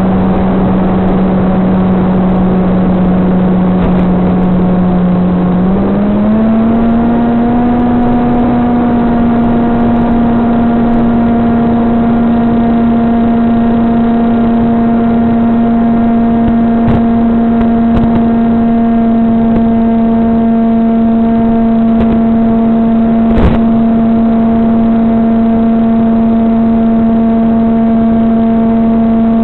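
SunnySky 2212 2450 kV brushless motor spinning an APC 6x5.5 propeller on a VAS Banshee flying wing, picked up over the FPV video feed's audio. It gives a steady droning whine that steps up in pitch about six seconds in as the throttle is opened and the current draw roughly doubles, then holds steady. A few brief clicks come in the second half.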